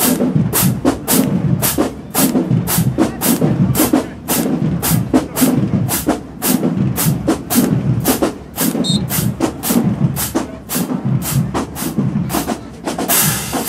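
Marching band drumline playing a cadence: sharp snare strokes about three a second over deep bass and tenor drum beats, with a longer cymbal-like crash near the end.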